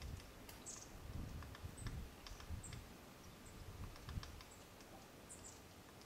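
Japanese pygmy woodpecker pecking and tapping at bark while foraging: light, irregular taps, most of them in the first four seconds. A few faint, short, high chirps sound in between.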